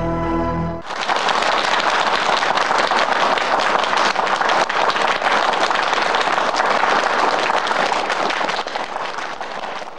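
Audience applauding, a dense steady clapping that starts about a second in as a song's last held notes end, and cuts off suddenly at the end.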